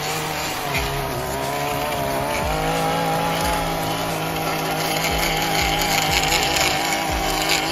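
Gas-powered stick edger running at a steady high speed, its spinning blade cutting the overgrown turf back along a concrete driveway edge.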